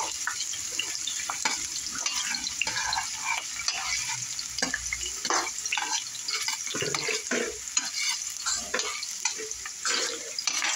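Sliced onions frying in hot oil in a stainless-steel saucepan, sizzling and crackling steadily, with the spoon knocking and scraping against the pan as they are stirred.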